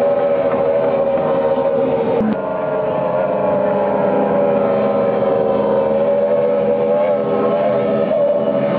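Water-ski race boat engines running at speed in a steady, slightly wavering drone, muffled by a worn VHS recording. About two seconds in there is a click, after which a steady low hum joins.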